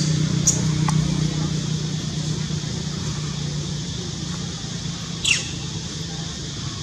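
A steady low motor hum, slowly fading, with one short high squeak that falls in pitch about five seconds in.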